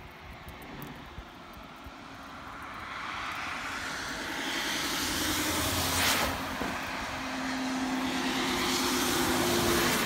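A passing vehicle's engine growing louder over a few seconds, loudest about six seconds in. A rushing noise and a steady engine hum stay up to the end.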